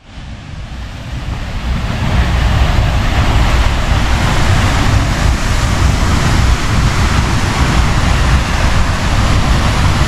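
Steady roar of a powerful waterfall, an even rush of falling water that fades in over the first couple of seconds and then holds steady.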